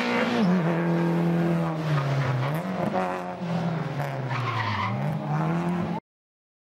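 VW Polo 1.4 Cup race car's engine revving hard, its pitch dropping and climbing again several times as it runs the autoslalom course, with tyres squealing briefly around four and a half seconds in. The sound stops abruptly near the end.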